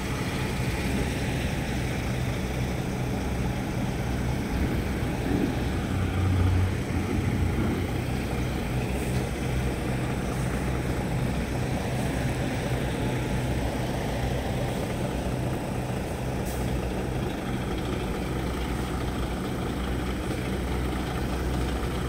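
Semi-truck's diesel engine running steadily at low revs as the tractor-trailer is slowly manoeuvred into a loading-ramp bay.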